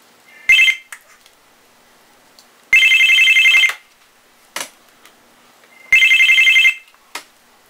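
A telephone ringtone: a trilling electronic imitation of a phone bell, rapidly pulsing. A short clipped ring comes about half a second in, then two full rings of about a second each, some three seconds apart, with a few short clicks between them.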